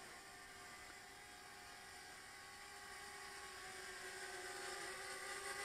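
Faint whine of the JJRC H37 Elfie pocket quadcopter's small motors and propellers in flight. It is a steady tone that grows louder toward the end, with a brief dip in pitch near the end.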